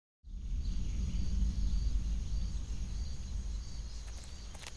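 Woodland ambience starting after a brief silence: a steady low rumble with a faint, short, high chirp repeating about twice a second.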